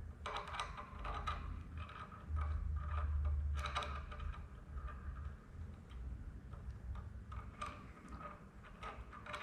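Scattered light metallic clicks and taps of the small parts of a Snap-on ratchet wrench head (pawl, spring and detent ball) being handled and fitted, over a low rumble.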